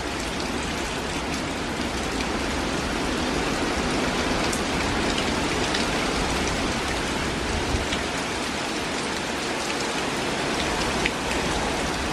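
Heavy hurricane rain pouring steadily, with a few sharp ticks of drops striking something close by.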